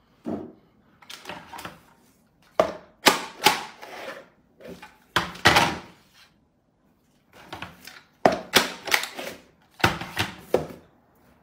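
Hand-held price labelling gun clacking as it is squeezed to print and stick labels, along with knocks of the gun and a cardboard box handled on a table. About ten sharp clacks come in uneven clusters, with short gaps of quiet between them.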